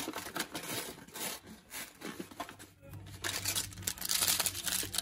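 Foil lid of a cup ramen bowl being peeled back and plastic seasoning sachets crinkling and rustling in the hands, in short irregular bursts. A longer stretch of crinkling comes about three seconds in.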